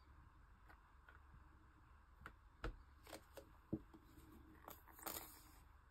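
Faint handling of craft materials: a few light clicks and knocks, then a short rustle about five seconds in.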